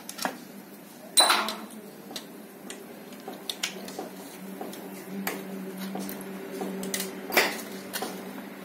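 Metal hand tools, a wrench and a long screwdriver, clinking and tapping against the cylinder head of a Tata Ace Mega engine under repair, with a louder metallic clank about a second in and another near the end, over a steady low hum.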